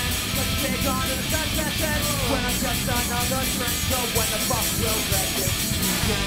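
A live rock band with a horn section playing: electric guitars, bass and drums with a fast, steady beat, and a bending melodic line over the top.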